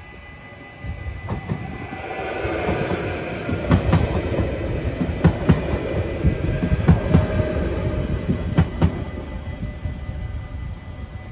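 Electric multiple-unit passenger train running over a level crossing. The rumble builds as it arrives, then comes four pairs of sharp clacks as its wheelsets cross the rail joints of the crossing, and it fades as the train clears.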